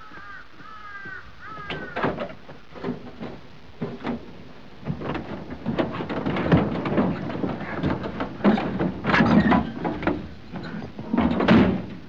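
Urban street sounds: a busy jumble of knocks, bangs and thumps, like doors slamming and things clattering, busiest and loudest in the second half. It opens with three short squeaks that dip in pitch.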